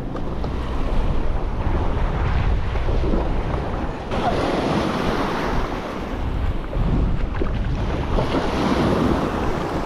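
Wind buffeting the microphone over the rush of surf washing in, with two fuller washes of water about four and eight seconds in.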